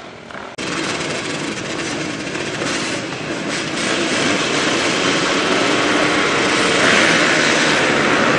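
A full field of motocross motorcycles revving together at the start line, a dense, loud engine noise. It cuts in abruptly about half a second in and swells louder about seven seconds in.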